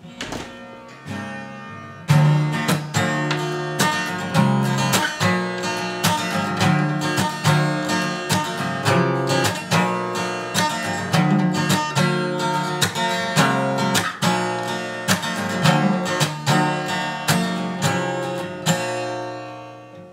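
Acoustic guitar being strummed, recorded inside a small vocal isolation booth. Softer playing for about two seconds, then loud, steady rhythmic chord strums that stop near the end and ring out.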